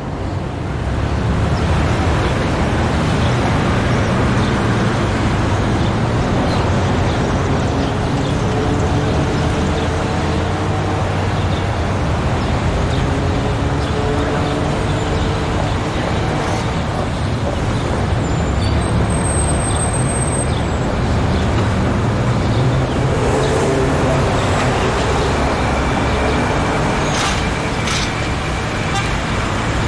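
Street traffic: a steady low rumble of vehicle engines and tyres, with a brief high-pitched whine about two-thirds of the way through and a few sharp clicks near the end.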